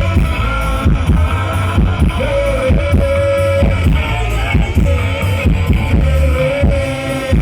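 Ska band playing live and loud: heavy bass and steady drum hits under guitar, with a melody line of long held notes.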